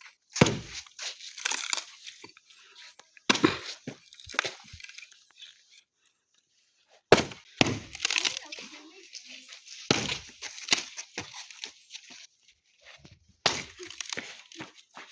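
A series of sharp cracks or snaps, about six in all at uneven intervals, each followed by a short rustling, crackling noise.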